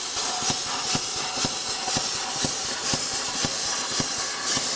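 ESAB Cutmaster 70+ plasma torch cutting across expanded metal mesh: a loud, steady air-plasma hiss with regular ticks about twice a second, cutting off sharply near the end as the trigger is released. The torch is in expanded metal mode, restarting its arc each time it meets the mesh on one trigger pull.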